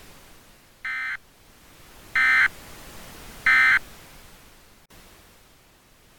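Emergency Alert System end-of-message signal: three short bursts of SAME digital data tones, each about a third of a second long and a little over a second apart, the first quieter than the other two.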